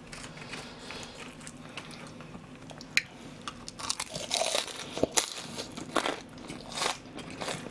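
Crispy battered deep-fried pork (soy-sauce tangsuyuk) being bitten and chewed: a sharp bite about three seconds in, then a run of crisp crunches as the piece is chewed.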